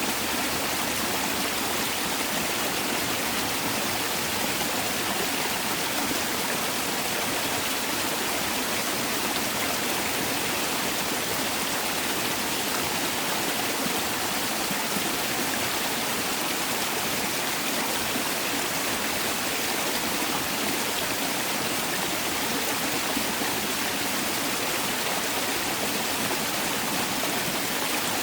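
Steady rushing and splashing of a mountain valley stream, water running over rocks at an unchanging level.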